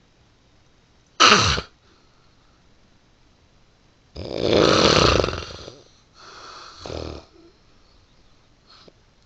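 Snoring: one short loud snore about a second in, then a long loud snore a few seconds later followed by a quieter, shorter one, with a faint breath near the end.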